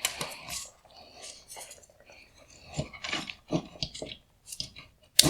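LED drive unit being pulled by its heatsink out of a headlight's upper projector: a run of small irregular clicks, scrapes and rattles as the part works loose, with a sharper click near the end.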